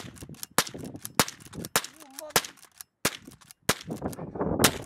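Lever-action .22 rifle fired rapidly into the air, about eight sharp shots at an even pace of a little under two a second, the lever worked between shots to empty the tube magazine.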